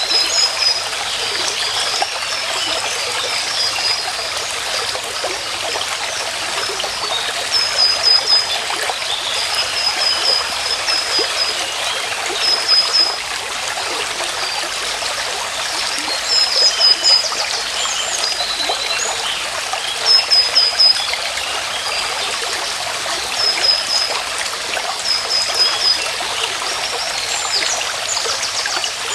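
Stream water flowing and trickling steadily. Over it, short runs of high, quick chirping calls repeat every couple of seconds.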